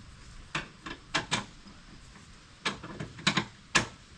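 Eight or so sharp clicks and knocks at uneven intervals, made by handling the metal parts of a lawn mower's belt and pulley assembly; the last knock near the end is the loudest.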